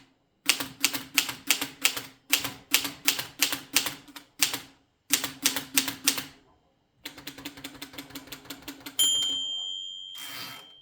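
1935 Erika Model M portable manual typewriter being typed on, sharp keystroke clacks at about four to five a second in runs with short pauses, then a run of quicker, lighter clicks. Near the end the margin bell rings once and dies away, followed by a short rasp of the carriage being returned.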